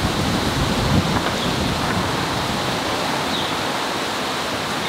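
Wind blowing across the microphone: a steady rushing noise, with heavier low buffeting in the first second.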